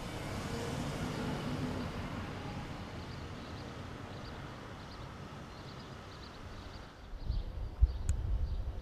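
Outdoor background noise that swells over the first couple of seconds and then eases, with faint high chirps. Near the end a louder low rumble with a few sharp pops takes over.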